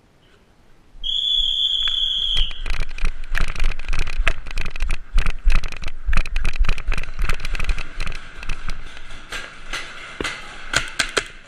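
A high-pitched horn sounds for about a second and a half, signalling the start of the round, then paintball markers fire in rapid, overlapping pops that thin out near the end.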